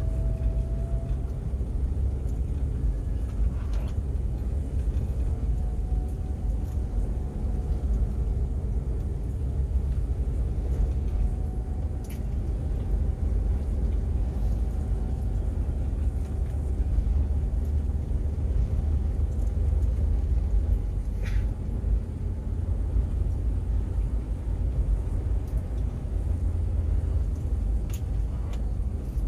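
A vehicle driving along a road: a steady low rumble of engine and road noise, with a faint engine tone drifting slightly up and down.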